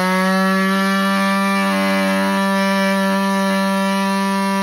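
Air-powered cut-off tool running flat out with a steady high whine as it cuts through a plastic car bumper.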